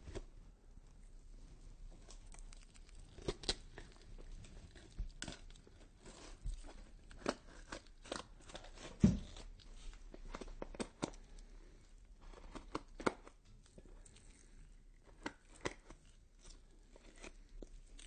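Horror sound effect of skin being cut and peeled: irregular tearing with scattered sharp cracks, the loudest about nine seconds in.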